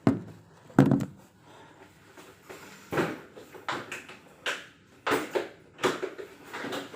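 Irregular knocks and clatters of hard objects being handled, about eight or nine in all, the loudest one about a second in.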